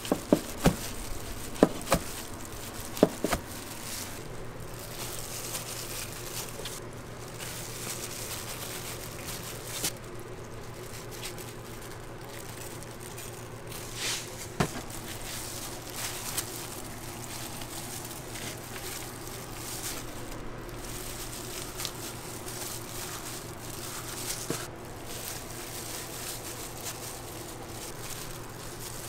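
A large kitchen knife cutting through kimbap rolls and knocking on a plastic cutting board, several sharp knocks in the first few seconds. After that, a steady background hum with a few faint clicks and rustles.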